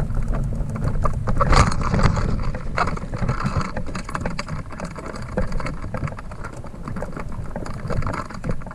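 Schwinn dog trailer towed behind a bicycle, heard from inside: a steady rolling rumble from its wheels on the pavement, with frequent clicks, knocks and rattles as it goes over bumps. It is a little louder in the first couple of seconds.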